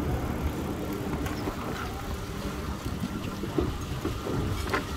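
Steady low rumble of a bicycle rolling over paving, with a faint hum under it and a sharp click near the end.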